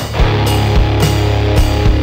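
Background rock music with a driving drum beat and distorted guitar.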